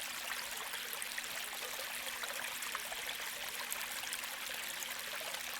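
Shallow creek water flowing and trickling in a steady, even babble.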